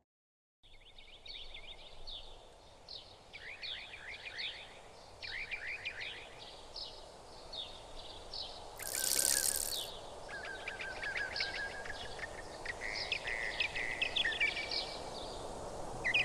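Songbirds chirping in rapid, overlapping runs of short high calls, starting after a brief silence. A rushing hiss lasts about a second, about nine seconds in.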